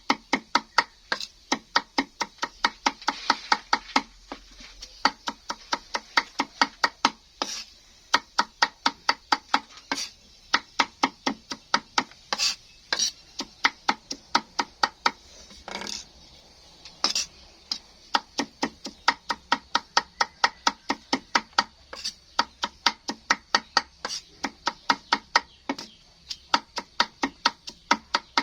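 A knife chopping food on a cutting board in a fast, steady rhythm of about four chops a second, each with a short ring. There are a few brief pauses and some heavier strokes along the way.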